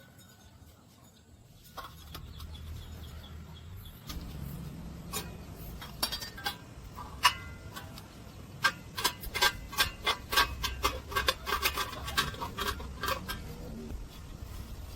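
Sharp metallic clinks and taps over a low hum, scattered at first and then coming in a quick irregular run from about eight and a half seconds in.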